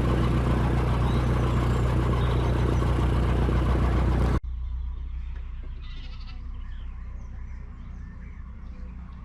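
Narrowboat's diesel engine running steadily, loud and close for the first four seconds, then a sudden cut to a quieter stretch where the engine hums low under faint bird chirps.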